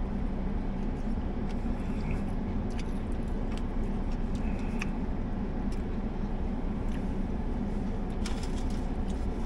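Steady low hum inside a parked car's cabin, with scattered faint clicks of someone chewing a crispy fried chicken sandwich.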